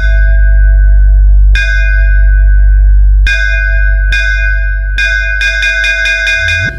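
DJ sound-check track with heavy bass: bell-like chime strikes ring over a loud, sustained sub-bass, struck about a second and a half in and again near three seconds, then repeating about every half second.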